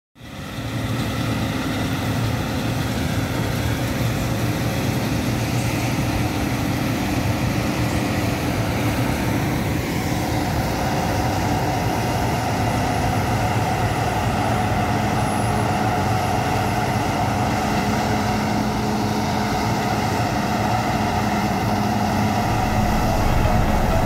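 Claas Trion combine harvester running steadily while harvesting wheat, a continuous engine and threshing drone whose note shifts slightly about ten seconds in.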